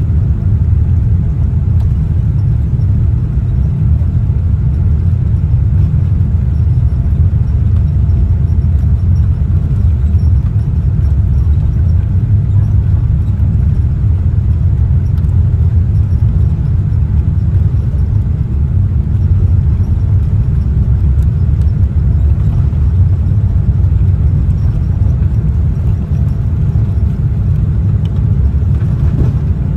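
Boeing 787-8 Dreamliner cabin noise in flight: a loud, steady, deep rumble of engines and airflow heard from inside the cabin, with a faint constant tone above it.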